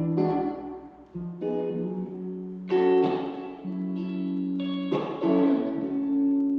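Acoustic guitar playing an instrumental passage of chords, struck every second or two and left to ring, between sung lines of a song.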